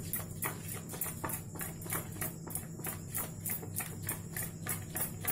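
A spoon stirring thick maida and cornflour batter in a steel bowl, in quick regular strokes, roughly three or four a second.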